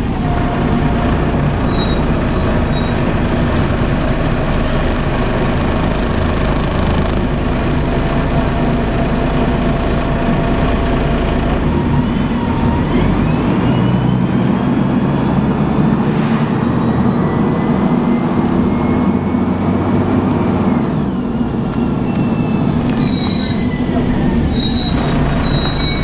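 Alexander ALX300 single-deck bus heard from inside while under way: a steady engine drone with the hoover-like whine of its Voith automatic gearbox. The whine rises in pitch as the bus picks up speed from about twelve seconds in, and falls away as it slows towards the end.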